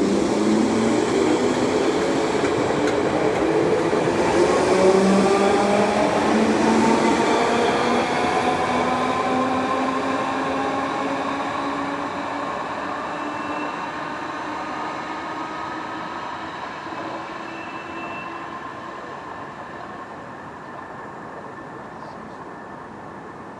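Merseyrail electric multiple-unit train pulling away, its traction motors giving a whine of several tones that rise in pitch as it accelerates. Its sound then fades steadily as it moves off.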